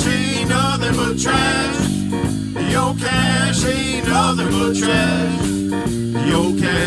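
Live blues band playing: electric guitar, bass guitar and drum kit, with a wavering lead line bending in pitch over a steady, stepping bass.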